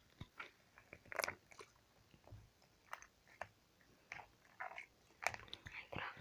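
Homemade slime being squeezed and pulled close to the microphone: faint, scattered sticky clicks and short squelches.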